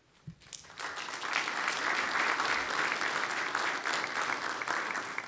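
Audience applauding: a round of clapping that builds up over the first second or so, holds steady, then dies away near the end.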